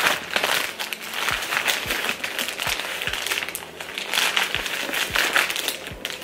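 Wrapping paper crinkling and rustling in irregular bursts as a wrapped book is worked open by hand with some effort.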